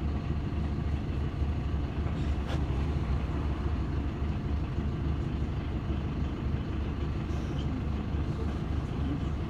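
City bus running, heard from inside the passenger cabin: a steady low engine drone mixed with road noise.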